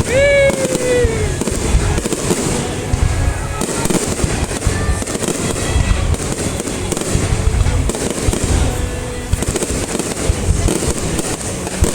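A dense fireworks display: continuous overlapping booms and crackling bursts, with a falling whistle in the first second or so.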